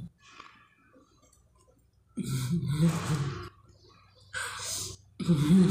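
Close-up eating mouth sounds: quiet chewing, then a voiced, hummed 'mmm' about two seconds in, and a short wet sucking smack of fingers being licked about four seconds in. A voice starts again right at the end.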